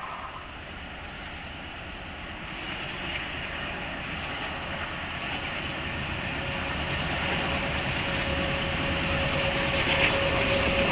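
Diesel locomotive hauling a passenger train approaching, its engine and wheel noise growing steadily louder, with a steady engine whine coming in about halfway through and strengthening as it nears.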